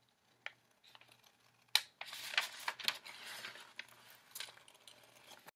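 Scissors snipping through a sheet of graph paper, with the paper rustling as it is turned between cuts; a sharp snip a little under two seconds in is the loudest. The sound cuts off suddenly near the end.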